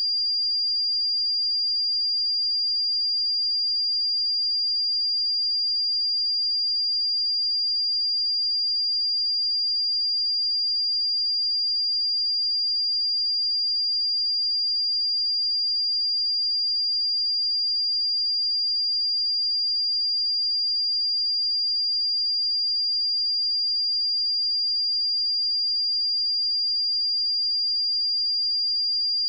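A pure 4796 Hz sine-wave test tone, one steady high-pitched whistle-like pitch held at constant loudness.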